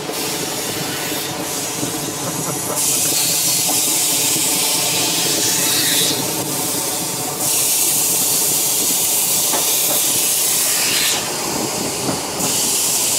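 Heritage electric tram running along the track, heard from on board at the front: a steady rumble of wheels on rail with a humming motor. A loud hiss cuts in and out abruptly in long stretches, three times.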